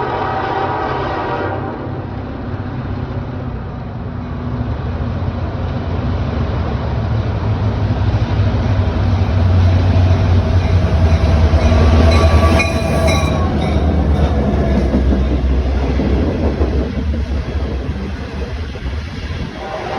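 A 1980s Leslie K5LA air horn on a GP38-2 locomotive sounds a chord that cuts off about a second and a half in. Then the locomotives' diesel engines rumble past, loudest near the middle, over the running noise of train wheels on rail.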